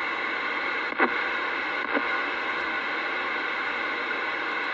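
Steady static hiss from a Galaxy CB radio's speaker between transmissions, with two brief chirps falling in pitch about one and two seconds in.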